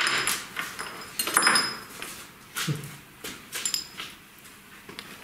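Steel parts of a Schaublin 12 milling machine clinking and scraping as a hex key is worked and a small steel bracket is pulled off the table end by hand, with louder scrapes at the start and about a second and a half in.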